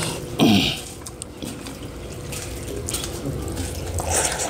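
Wet mouth sounds of eating rice and dal by hand: chewing and smacking, with a louder, brief slurp about half a second in and another hissy mouthful near the end.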